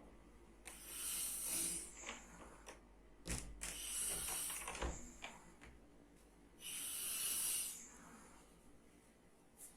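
A sleeping person snoring: three breathy snores about three seconds apart, with two short clicks between them.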